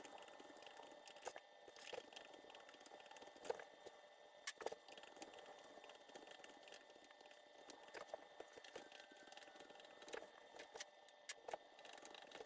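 Near silence with faint, scattered clicks and crinkles: sausage casing being filled with ground pork and slipping off the nozzle of a vertical sausage stuffer.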